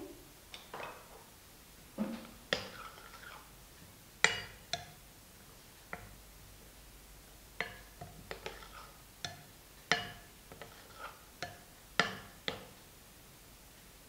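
Steel ladle knocking and scraping against a glass bowl while stirring a thick spice paste: irregular light clinks, a few ringing briefly.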